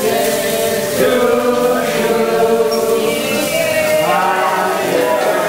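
Voices chanting in long held notes.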